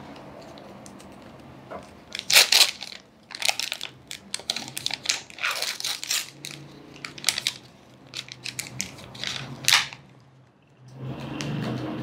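A sterile suture peel pack of plastic film and paper being torn open and its wrapping crinkled, in a run of sharp crackles and tearing rustles. A brief lull follows near the end, then softer handling of the inner card.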